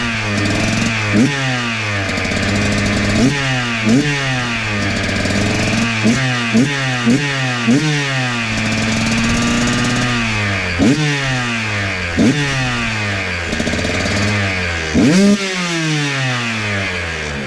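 2023 KTM 125 XC two-stroke engine, fitted with an FMF Factory Fatty expansion chamber and Turbine Core 2.1 silencer, idling and being blipped: about a dozen quick throttle stabs, each a sharp rise in pitch that drops straight back to idle. The biggest rev comes near the end.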